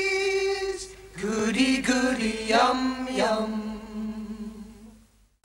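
Unaccompanied voices singing long held notes: a high note first, then lower notes with short slides between them, fading out near the end.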